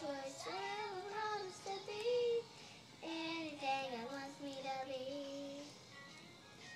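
A young girl singing a children's song, two sung phrases with a short break about two and a half seconds in, trailing off near the end.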